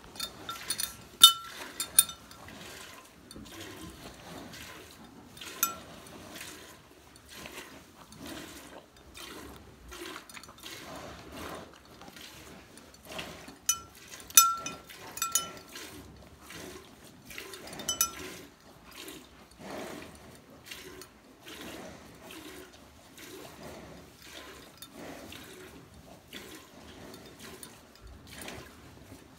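Milk being hand-squirted from a cow's teats into a stainless steel pail, in a steady rhythm of short squirts. A few squirts ring out louder against the metal.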